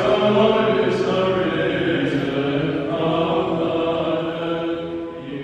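Voices chanting an Orthodox liturgical hymn in long, held notes, slowly fading toward the end.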